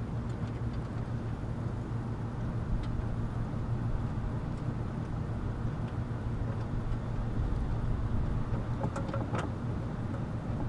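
Steady low mechanical hum of running rooftop air-conditioning equipment, with a few faint clicks from handling wires and tools in the unit's panel, about three seconds in and twice near the end.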